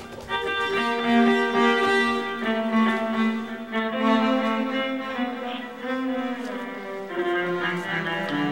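Music played on bowed strings, with a cello carrying slow sustained notes that change pitch every second or so.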